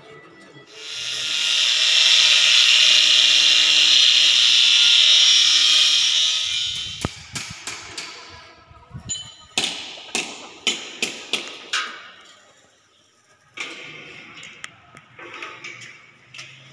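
A handheld power tool runs for about six seconds, spinning up near the start and winding down, followed by a run of about ten sharp knocks over the next few seconds.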